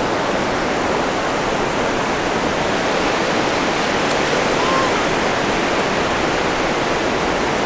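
Ocean surf breaking on the beach: a steady, even rush of waves.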